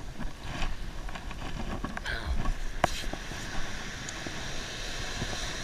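Steady wash of surf on the beach, with a sharp click about three seconds in.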